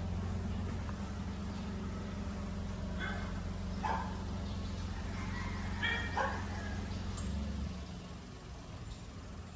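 A dog barks four times, the last two close together, over a steady low hum that fades out near the end.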